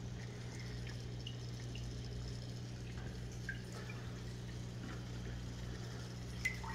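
Reef aquarium equipment running: a steady low electrical hum with faint water trickling and small drips, typical of a sponge filter and nano protein skimmer on a small tank.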